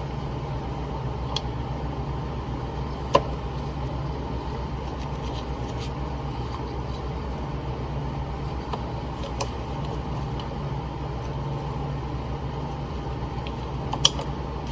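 Steady low mechanical hum, with a few short sharp clicks of hand work on the fuel line about three seconds in and near the end.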